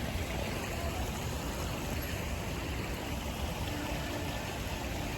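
Steady rushing noise with a heavy low rumble.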